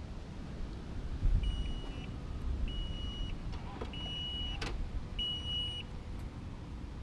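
A Chrysler Town and Country minivan's electronic warning chime beeping four times, evenly about a second apart, each a short high tone. Under it there is a low rumble, and a sharp click falls between the third and fourth beeps.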